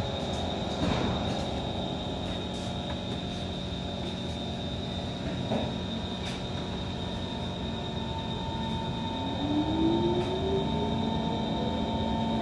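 Inside a Kawasaki C151 metro train: a steady electrical hum and high whine from the standing train's onboard equipment, with a couple of soft knocks. About nine seconds in, the traction motors start, and a whine rises steadily in pitch as the train pulls away from the platform.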